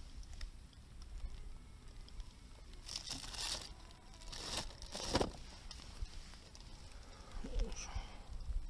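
Crinkling and rustling, like something being handled or crumpled, in three short bursts about three to five seconds in.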